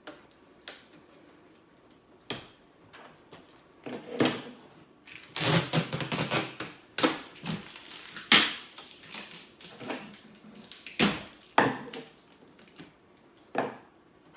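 Packing tape being cut and pulled off a 3D printer's enclosure: a run of irregular sharp clicks and scrapes, with a longer, louder noisy stretch about five seconds in.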